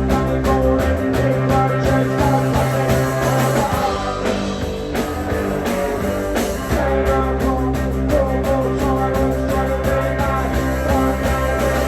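A punk rock band playing a song, with electric guitar, bass and a steady drum beat.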